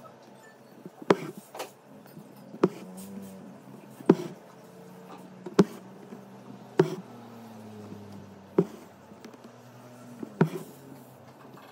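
Hand-embroidery needle piercing thin canvas stretched taut in a hoop, a sharp tap about every second and a half as each stitch goes through. Between the taps, single-strand embroidery floss rasps faintly as it is drawn through the fabric.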